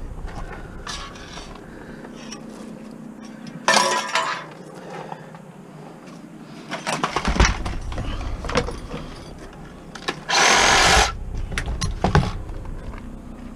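Scrap metal being handled and tossed: scattered knocks and clanks, with two louder rattling crashes of under a second each, about four and ten seconds in.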